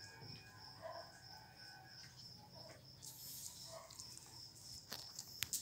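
Mostly quiet: a faint steady high-pitched whine, with a few faint short whimpers from small dogs and some light clicks near the end.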